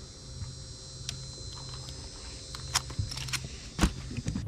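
Handling noises in a bass boat: a few sharp clicks and knocks as a hand-held digital fish scale is put away and laid down, the loudest knock near the end. A low hum runs underneath.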